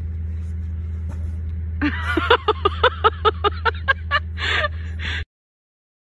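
A steady low rumble with a person's voice breaking out in about a dozen quick rhythmic pulses, then two short breathy bursts; the sound cuts off suddenly near the end.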